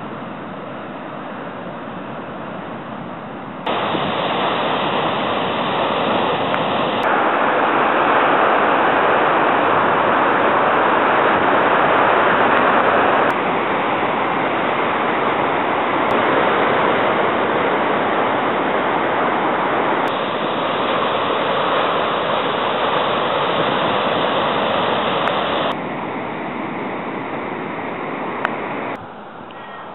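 Steady rushing of wind and surf by the sea. It jumps abruptly up or down in loudness several times as one clip cuts to the next.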